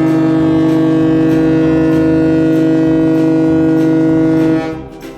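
Ferry's horn sounding one long, steady blast that stops near the end.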